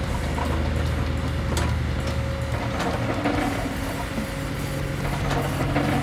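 Small electric gear motors of a HUINA radio-controlled toy excavator whirring as its arm and bucket work the sand, with a few light clicks, over background music.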